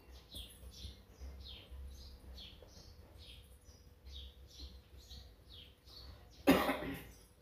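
A small bird calls over and over in the background, short falling chirps two or three a second. Near the end comes a single cough, the loudest sound.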